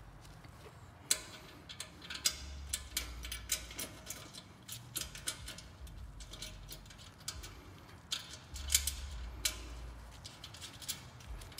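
Irregular small metal clicks and clinks, a few of them sharper, as new bolt hardware is fitted and started by hand in a motorcycle muffler's chrome hanger bracket.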